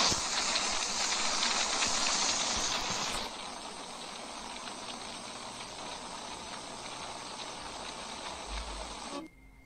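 Loud, steady hissing static noise, like white noise or TV static. It drops noticeably in level about three seconds in and cuts off suddenly near the end.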